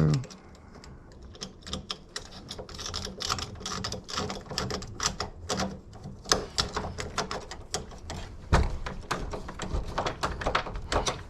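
Rapid, irregular metallic clicking and ticking as a screw is worked out of door lock hardware with a screwdriver, with one heavier thump about eight and a half seconds in.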